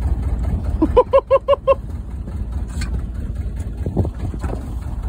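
Small fishing boat's engine running at idle, a steady low rumble. About a second in comes a quick run of five short, evenly spaced pitched notes, and a few light knocks follow later.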